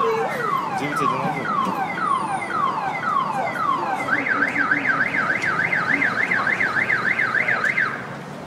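Car alarm going off after a tree falls across parked cars: a run of falling chirps, about two a second, then a fast up-and-down warble from about four seconds in, cutting off near the end.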